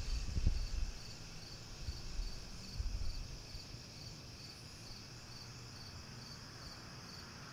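Insects in a grassy field chirping faintly and steadily, a high chirp repeating about two or three times a second over a thin high hiss. Irregular low rumbles come in the first three seconds, then die away.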